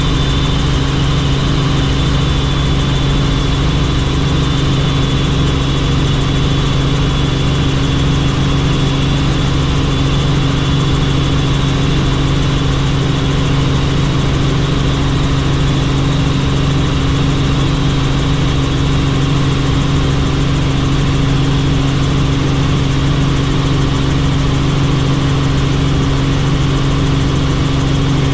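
Helicopter in flight: a steady, loud drone of engine and rotors, with a constant low hum and a thin high whine.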